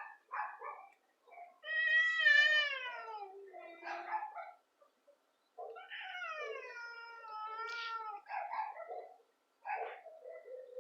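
Cat caterwauling in a fight standoff: two long, wavering yowls, one starting about two seconds in and another about six seconds in, with shorter calls between and near the end.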